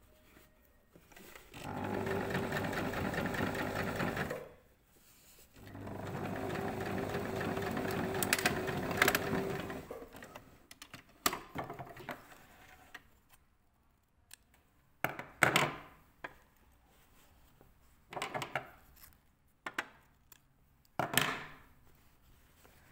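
Electric domestic sewing machine running in two steady runs of a few seconds each, with a short pause between them, as it sews an understitch along a facing seam. After that come fabric handling and a few sharp clicks and rustles.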